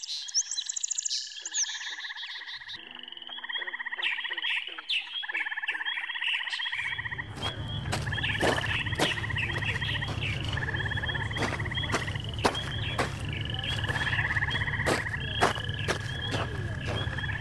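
Nature soundscape of repeated trilling calls, short chirps and scattered clicks. A steady low rumble joins about seven seconds in.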